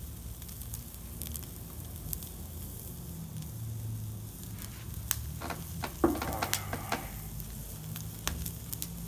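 Giant beef-and-vegetable skewer sizzling over hot charcoal, with small crackling clicks from the fire, over a steady low hum.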